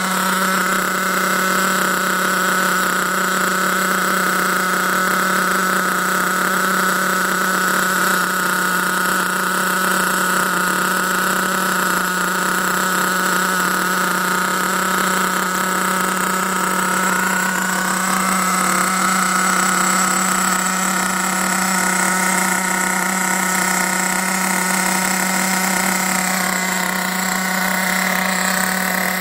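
HPI Trophy 4.6 Truggy's small nitro engine idling steadily at an even pitch, the car held up on a stand with its wheels off the ground while the brand-new engine is being run in.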